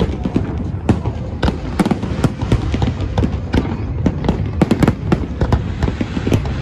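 Fireworks display: shells bursting in rapid, irregular bangs and crackles, several a second, over a steady low rumble.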